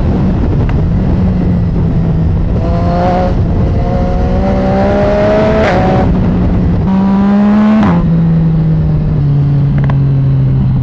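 Yamaha MT-09 three-cylinder engine through an aftermarket exhaust, pulling hard with its pitch climbing. It drops at two upshifts, about six and eight seconds in, then settles into lower, steadier running. A constant rush of wind noise runs underneath.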